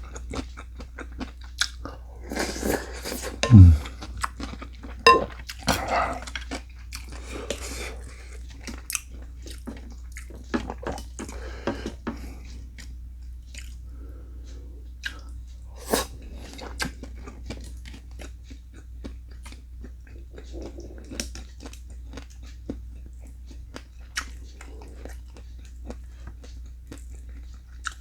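A person eating close to the microphone: irregular bites and crunchy chewing, loudest a little after three seconds, over a faint steady low hum.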